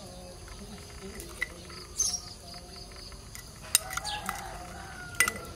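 A metal spoon clinks sharply against a ceramic bowl a few times while a crumbly mixture is stirred. Insects chirp steadily in the background.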